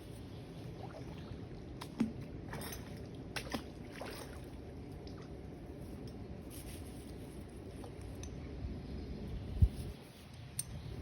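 Magnet-fishing magnet and rope being tugged to work it free from a snag, heard as a steady low rumble with scattered clicks and knocks; the sharpest knock comes near the end.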